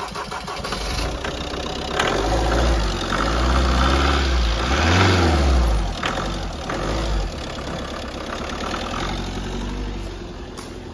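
Ford Transit van engine cranking, catching about two seconds in, revving up and down, then settling to a steady idle. It is a hard restart after standing unused, which the owner puts down to the fuel draining back out of the filter.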